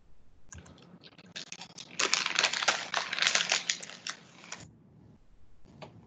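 A dense run of rapid clicks and crackles close to the microphone, loudest in the middle and stopping suddenly about four and a half seconds in, with one more short click near the end.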